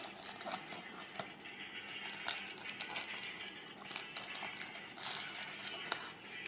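Scissors snipping through the packing tape and plastic wrap of a parcel, with the plastic crinkling: a string of small, irregular snips and crackles.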